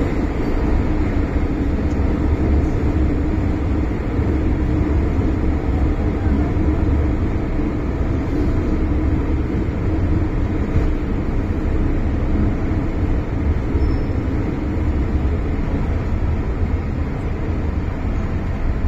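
Interior running noise of an MTR Island Line M-Train (Metro-Cammell electric multiple unit): a steady low rumble of wheels and traction equipment as the train runs through the tunnel and into a station.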